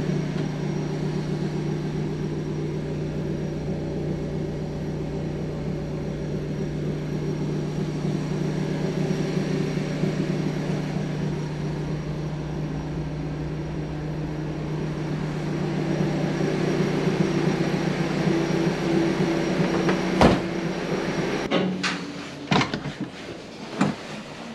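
A steady machine hum that cuts off suddenly near the end, followed by several sharp clicks and knocks.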